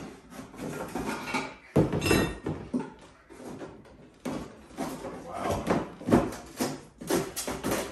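Wooden cabinet end panel being wrenched loose by hand, giving an irregular run of cracks, creaks and knocks. The loudest sharp cracks come about two seconds in and again about six seconds in.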